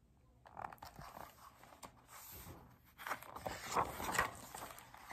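A stiff picture-book page being turned by hand: paper rustling and crackling, louder about three seconds in as the page swings over.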